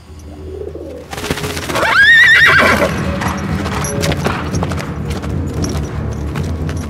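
A young mare whinnies loudly about two seconds in, one wavering call, while her hooves pound and scuffle in the arena sand as she spooks under her rider.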